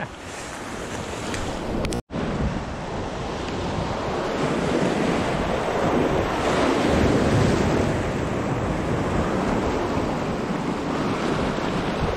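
Sea waves surging and washing over coastal rocks, with wind buffeting the microphone. The sound cuts out for an instant about two seconds in.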